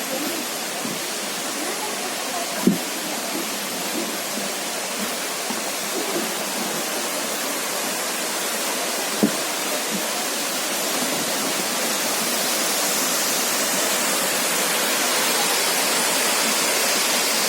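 Waterfall rushing in a steady roar of falling water, growing slightly louder in the second half. Two brief thumps, one about three seconds in and one about nine seconds in.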